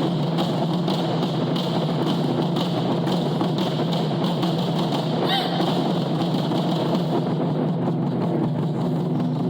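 Japanese taiko drums played fast and without a break, a dense, even drumming with no pauses between strokes.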